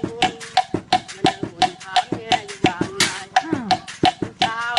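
Makeshift percussion instruments playing a quick, even ramwong rhythm of about four to five strokes a second, each stroke short and sharp with a brief ring. A voice sounds over the rhythm near the end.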